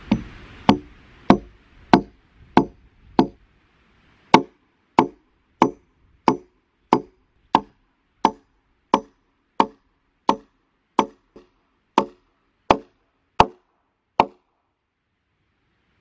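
Hammer blows driving a nail into a rough-sawn wooden beam: about twenty evenly spaced strikes, roughly three every two seconds, each a sharp knock with a short ring. There is one short pause about three seconds in, and the strikes stop a little before the end.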